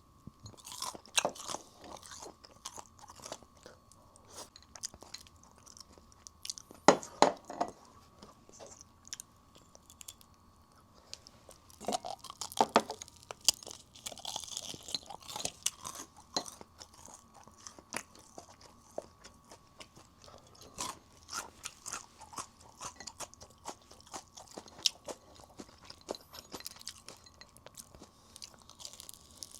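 Close-up crunching and chewing of crispy fried chicken: a crackle of crisp bites, with the loudest crunches about seven and twelve seconds in.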